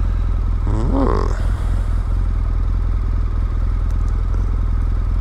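BMW GS motorcycle's boxer-twin engine idling steadily while the bike stands still.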